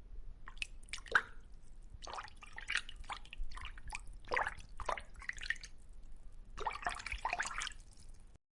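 A dog: a run of short, irregular clicks and brief squeaky notes over a low hum, stopping near the end.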